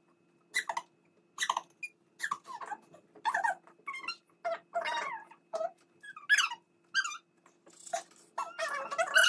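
A woman and a young girl giggling and letting out squeaky little squeals in short bursts of a fraction of a second each, about one a second.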